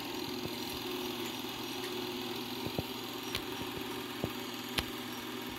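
8 mm film projector running: a steady motor hum with a few faint clicks scattered through it.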